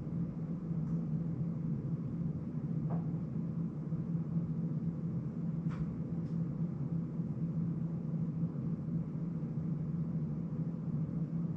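Steady low hum of room noise, with a few faint ticks about three and six seconds in.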